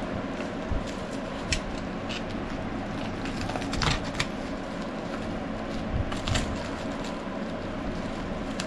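Clear plastic wrapping crinkling and crackling as it is pulled and cut open around a bundle of steel hand files, with a few short sharp crackles over a steady background hiss.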